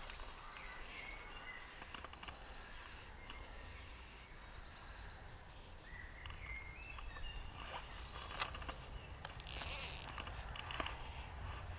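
Small birds singing in the background, repeated high trilled songs and chirps, over a steady low rumble of wind on the microphone. There is a single sharp click about eight seconds in and a short rustling hiss about ten seconds in.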